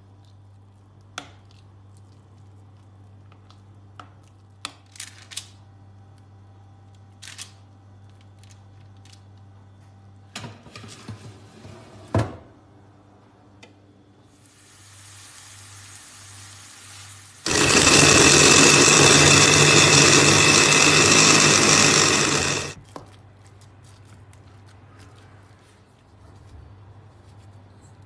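Scattered light knocks of a utensil against a glass bowl, then an electric food processor runs steadily for about five seconds, mincing raw chicken breast.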